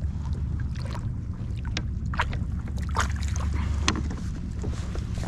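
Steady wind rumble on the microphone, with scattered light clicks and knocks from handling aboard a fishing kayak.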